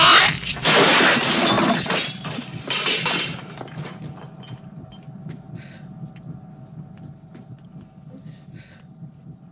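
Horror-film creature sound effect: the newborn alien chestburster lets out shrill, hissing shrieks in three loud bursts over the first three seconds or so. These give way to a steady low spaceship hum with scattered small clicks.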